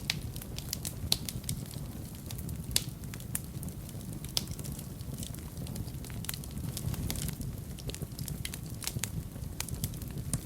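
Fire burning in a fireplace, crackling with irregular sharp pops and snaps over a low steady rumble of the flames.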